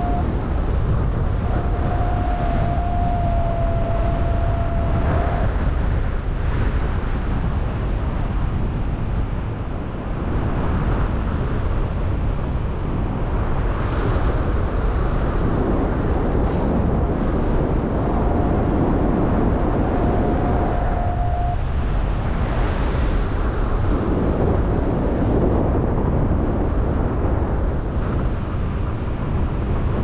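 Strong, gusty wind rushing and buffeting the microphone of a paraglider pilot's camera in flight. A steady high tone sounds over it for the first five seconds or so and again for about three seconds past the halfway point.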